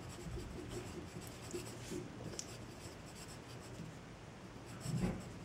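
Pencil scratching on paper as words are written by hand, faint and irregular. A brief soft low sound comes near the end.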